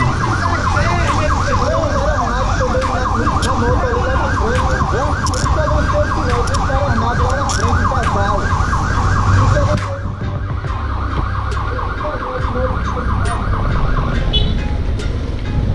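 Emergency-vehicle siren in a fast yelp, about four rising-and-falling sweeps a second, which cuts off suddenly near the end.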